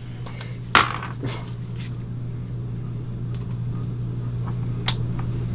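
A steady low hum with a few short knocks and clicks of parts being handled; the sharpest knock comes just under a second in.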